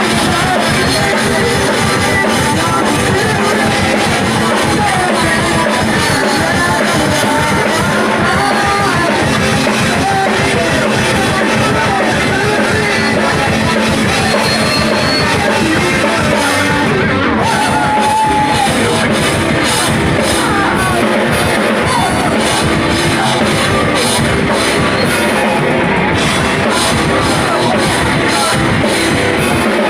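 Live rock band playing loud with a full drum kit and distorted guitars, a singer's voice over the top.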